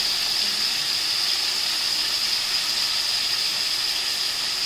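Tomato pieces sizzling in hot oil in a metal kadai: a steady, even hiss.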